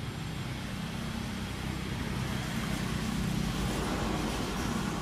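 A steady low rumble with a hiss over it, swelling a little past the middle and easing off near the end.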